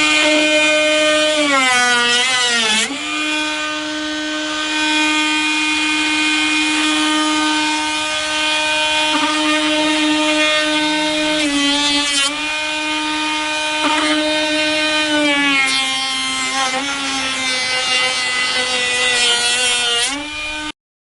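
High-speed electric power tool running a groove into the wooden window sash, its motor whining steadily and dropping in pitch several times as it bites into the wood, then cutting off abruptly near the end.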